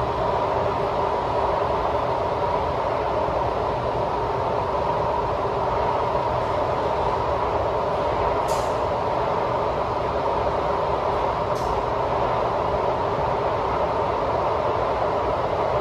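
SMRT Kawasaki C751B metro train running at a steady speed, heard from inside the car: an even rumble of wheels and running gear with a steady mid-pitched hum. Two brief high hisses come about three seconds apart in the middle.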